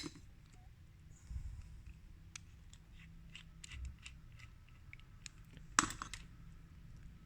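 Light clicks and ticks of small plastic and metal parts being handled while a CD player's loader mechanism is reassembled, with one sharper click near the end.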